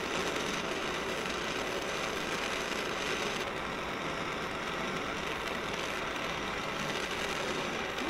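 Oxy-fuel torch flame hissing steadily as it heats a steel arrowhead held in locking pliers, bringing it toward cherry red for hardening.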